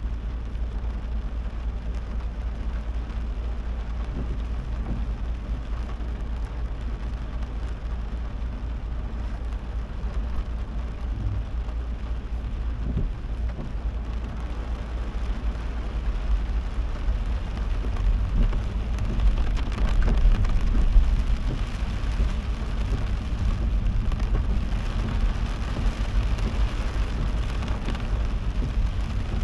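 Heavy rain beating on a moving car over a steady low road-and-engine rumble; the rain grows louder a little past halfway through.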